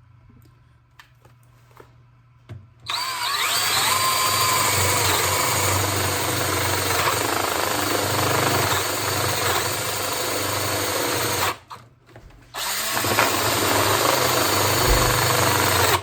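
DeWalt 18-volt cordless drill boring a hole in wood under heavy load. It runs in two stretches: its whine rises as it starts about three seconds in, it stops briefly near twelve seconds, then runs again. The motor is starting to smoke again under this load.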